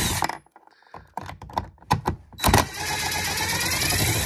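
Cordless impact drill with a 10 mm socket on a long extension, running in short bursts to back out a 10 mm bolt from a car door panel. One run stops just after the start, a few light clicks follow, then it runs steadily again for about two seconds near the end.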